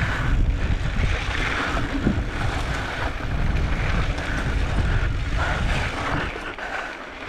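Wind buffeting the camera's microphone and knobby tyres rolling and crunching over a dusty, rocky dirt trail as a mountain e-bike descends. The rush eases somewhat near the end.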